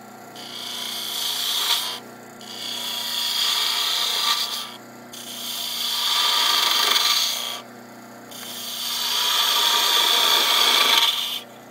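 A turning gouge cutting a bead in a spinning maple pepper-mill blank on a wood lathe. It makes four cutting passes, each a shaving hiss that swells louder and then breaks off. The lathe's steady hum runs underneath.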